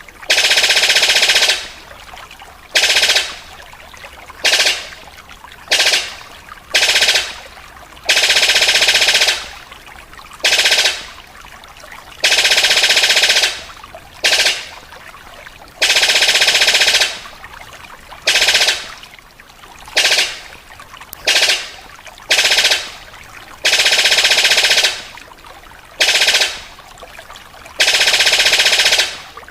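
Paruh sabit bird giving loud, harsh rattling calls over and over, likened to a gun firing. Long rattles of one to two seconds alternate with short bursts, about a dozen in all.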